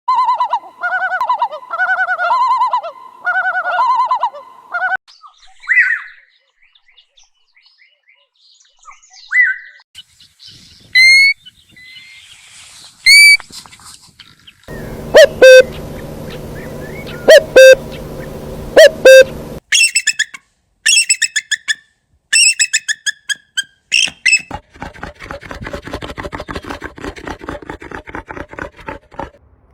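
Calls and songs of several different bird species, one recording after another. It begins with a repeated warbling song phrase, then single whistled notes and rising whistles, then loud sharp calls over a steady low hum, and ends with a fast, rapid trill.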